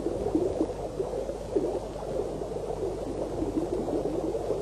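Steady underwater bubbling and gurgling of water, with a faint low hum beneath.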